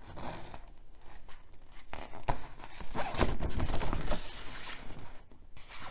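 Large folded paper poster being handled, the sheet rustling and crinkling in several separate swishes.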